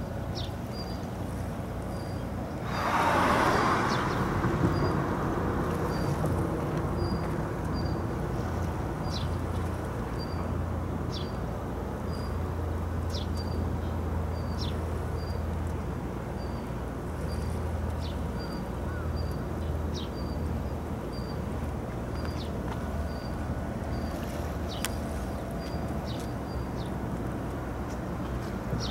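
High-speed passenger ferry's engines running steadily at speed with the rush of its wash, heard at a distance, with a brief louder rush of noise about three seconds in. Small birds chirp over it, one repeating a short high note about every half second, others giving quick falling calls.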